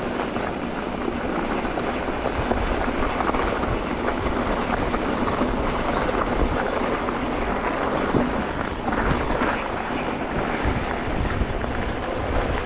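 Steady rushing noise of wind across the microphone and a low rumble from tyres while riding a mountain bike along a trail.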